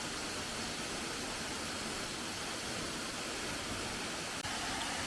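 Steady rushing hiss of a waterfall, with a momentary break about four and a half seconds in.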